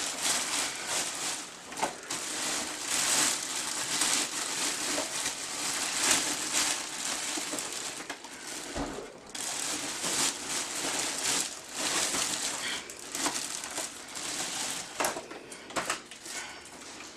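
Clear plastic wrapping crinkling and crackling as it is pulled off and bunched up around a new upright vacuum cleaner, with many small sharp crackles, dying down near the end.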